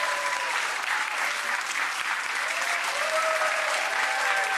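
Studio audience applauding steadily, with a few voices calling out over the clapping.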